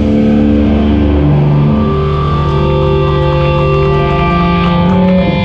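Live rock band playing loud electric guitar and bass, holding long sustained notes and chords that change every second or two.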